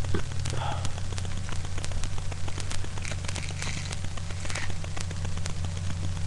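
Steady low electrical hum with constant fine crackling clicks, the noise of a cheap webcam microphone, with faint breathy or mouth sounds now and then.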